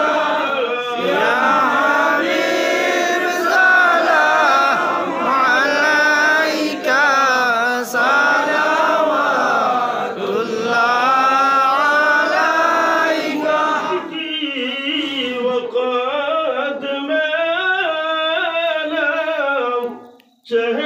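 Melodic devotional chanting of durood sharif at a milad, sung by voices in a slow, wavering tune without instruments. About fourteen seconds in the sound thins to a lighter, higher texture, and it breaks off for a moment near the end before the singing resumes.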